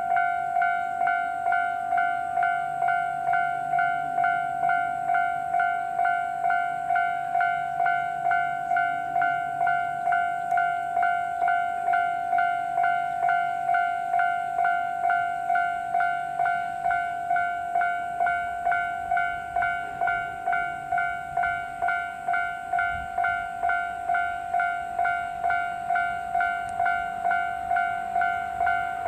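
Japanese railway level crossing warning bell ringing steadily, an even run of single-pitched dings about two a second, the signal that a train is approaching.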